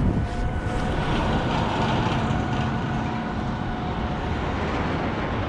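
A roller coaster train running along its steel track: a steady rumble with a faint whine that fades about four seconds in.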